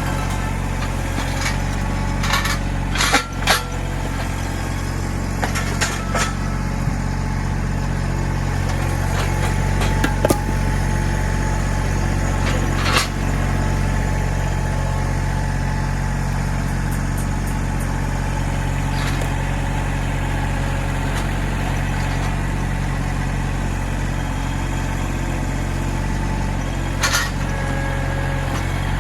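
Mahindra 1626 compact tractor's diesel engine running steadily while the backhoe works, with a handful of sharp knocks and clanks: a pair about three seconds in, others around ten and thirteen seconds, and one near the end.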